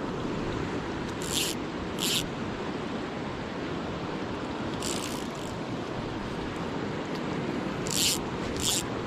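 Steady rushing of a fast-flowing river current, with a few short high hisses spread through it.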